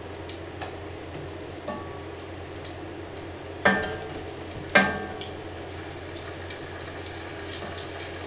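Tropea onions and tomato sizzling in oil in a cast-iron Dutch oven, a steady frying hiss, with two sharp metallic clinks about three and a half and five seconds in.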